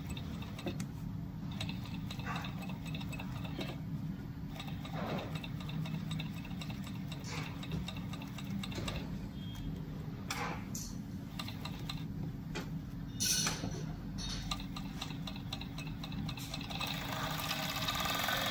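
Zoyer ZY988 overlock (merrow) sewing machine running while stitching the edge of a mesh shoe upper: a steady mechanical hum with occasional short clicks, louder near the end.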